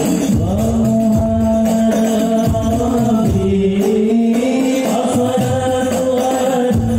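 Group singing a sholawat in long held notes over hand drums and jingling tambourines, played loud through a sound system.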